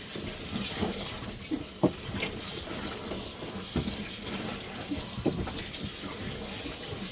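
Rinse water running into the wash tub of a portable twin-tub washing machine while wet clothes are squeezed and turned by hand in it, with a steady hiss of water and several short sloshes and squelches.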